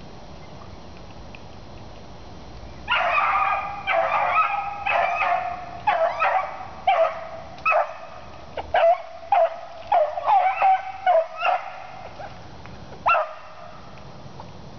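A beagle giving tongue while trailing a cottontail rabbit: a quick run of pitched hound barks starting about three seconds in and going for about nine seconds, with one last bark near the end.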